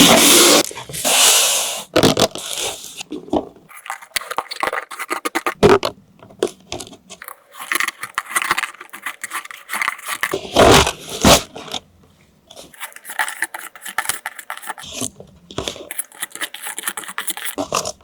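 Irregular scraping, rustling and clicking from packaging and plastic toy parts being handled during an unboxing, with two loud noisy bursts near the start.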